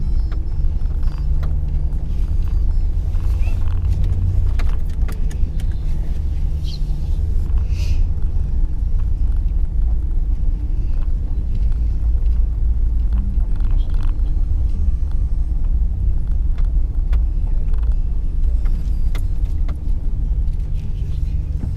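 Engine and road noise heard from inside a moving vehicle: a steady low rumble, with scattered light clicks and rattles from inside the cabin.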